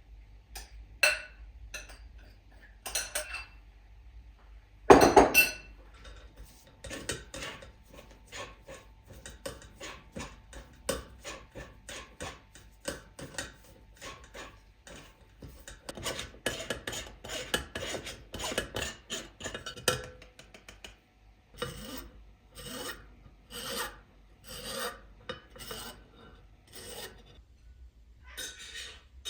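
Food being grated by hand on a kitchen grater: repeated rasping strokes, quick and even at first, slower near the end. A single loud knock about five seconds in.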